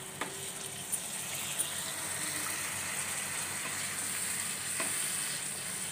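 Water poured from a glass into a pan of hot, oil-fried spice masala: a steady sizzling and splashing as the liquid hits the hot oil, with a few faint clicks.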